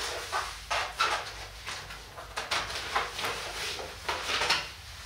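A run of short, irregular rustling and scraping noises, roughly two a second, over a faint low hum: objects being handled at close range.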